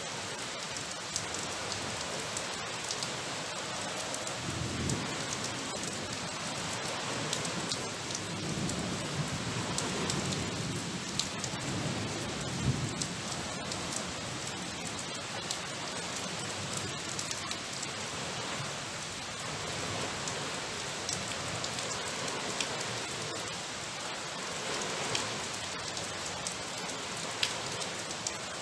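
Steady rain falling, with many sharp drop ticks over an even hiss. A few low swells rise and fade around a quarter of the way through and again near the middle.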